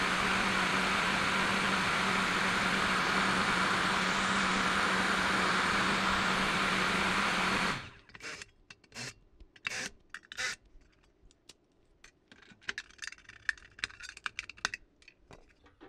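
Car heater fan blower in a sheet-metal housing running with a steady rush of air and a low hum, then cutting off suddenly about eight seconds in. It is followed by scattered knocks and clatter as the metal housing is handled.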